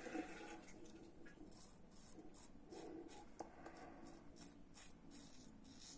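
Faint scraping of a Goodfellas Italiko safety razor cutting through lathered stubble in quick, short strokes.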